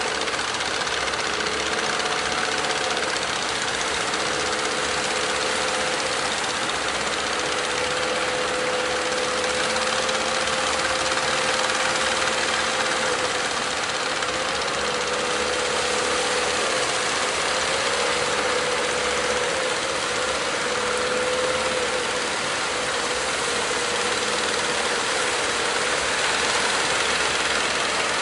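Diesel engine of a wooden fishing boat running hard under load, its note wavering slightly in pitch a few times, over a steady hiss of wind and surf.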